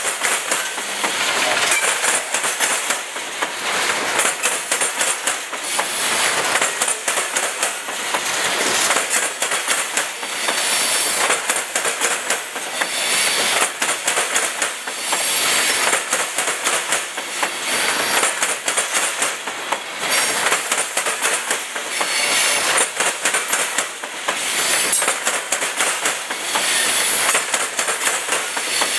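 Freight train of hopper cars rolling past at close range, the steel wheels clattering over the rail joints in a steady clickety-clack that swells and eases every couple of seconds as each car's wheel sets go by.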